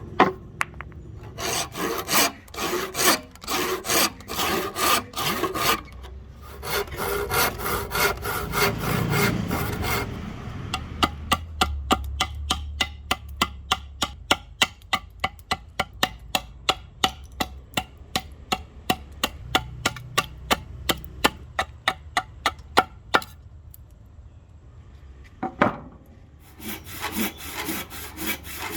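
Hand saw cutting through a rosewood blank, stroke after stroke. The strokes are uneven at first, then settle into a quick steady rhythm of about two to three a second, pause briefly, and start again near the end.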